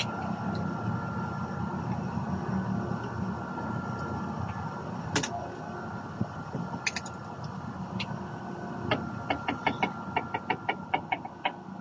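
A quick, even run of about fourteen light ringing metallic clicks, roughly five a second, as a can of oil is worked against a pump-action shotgun during cleaning. A few single clicks come earlier, over a steady low background rumble.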